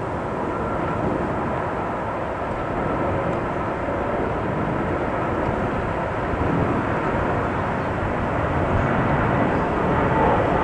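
An Airbus A330-300's Rolls-Royce Trent 700 turbofans heard from the ground as the airliner passes low on approach with gear down: a steady rushing jet noise that grows a little louder near the end.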